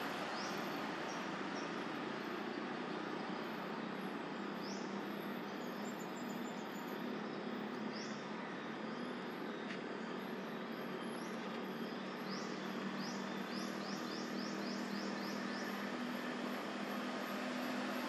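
Steady outdoor background noise with a thin high insect whine, and short rising chirps here and there, several in quick succession past the middle.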